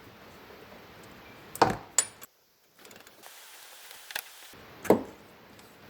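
Scattered knocks and clinks of hand tools and metal parts being handled during repair work on an ATV: a few sharp strikes about a second and a half in and again near the end.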